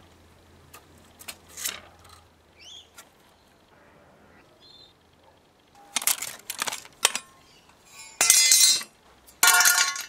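Sheet-metal casing and parts of a car GPS unit clinking and scraping as it is taken apart with a screwdriver: a few light clicks at first, a cluster of sharper knocks about six seconds in, then two louder, longer scraping rattles near the end.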